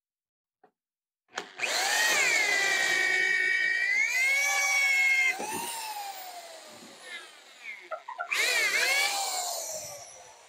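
DeWalt DWD520 corded hammer drill on its slower speed, boring into a 2x4 with a screw-tipped speed bore bit. The motor whines up about a second and a half in, runs loud and steady under load for about four seconds, then winds down. A second burst comes near the eighth second and fades away near the end.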